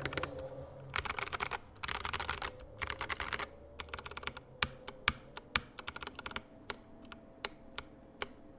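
GK96S mechanical keyboard with stock Tecsee Purple Panda switches and PBT keycaps being typed on. It starts with quick runs of keystrokes, and from about halfway the key presses come singly and spaced apart.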